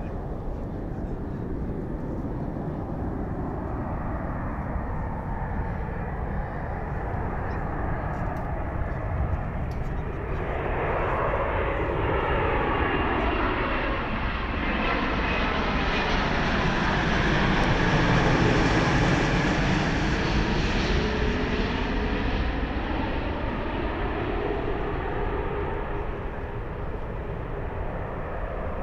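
Jet noise of an ANA Boeing 787-8 Dreamliner's twin Rolls-Royce Trent 1000 turbofans on final approach, gear down, passing low overhead. It builds from about ten seconds in, is loudest around eighteen seconds with a sweeping whoosh as the plane passes over, then fades as it flies away.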